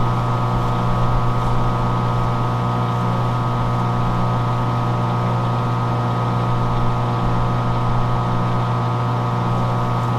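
Metal lathe running at a steady speed, spinning an air compressor crankshaft while its bearing journal is polished with a Scotch-Brite pad: a steady, even hum.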